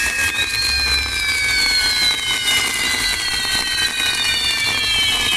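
Spinning firework wheels on a pyrotechnic castillo tower, their whistles sounding together as several shrill tones that slowly fall in pitch over a dense crackle of burning sparks.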